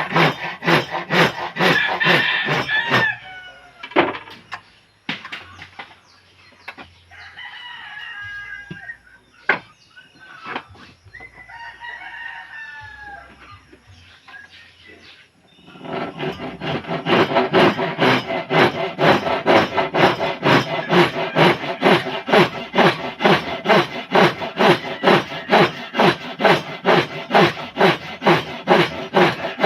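Hand saw cutting wood in quick, even back-and-forth strokes, about two to three a second. The sawing stops about three seconds in and starts again past the halfway mark. In the pause, chickens cluck and a rooster crows.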